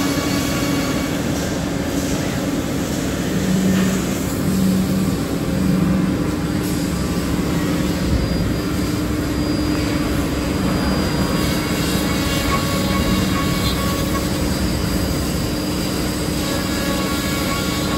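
Router spindles of a four-axis CNC mortise-and-tenon milling machine running and cutting into clamped wooden blanks. It makes a steady machine hum, with a lower tone that swells several times in the first half.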